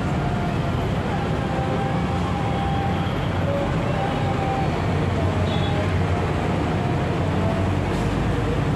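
Steady low background rumble with no pauses, with faint thin high calls or chirps now and then over it.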